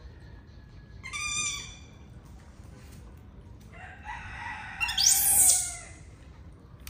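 A rooster crowing: one loud crow about two seconds long, starting a little under four seconds in, with a shorter high call about a second in.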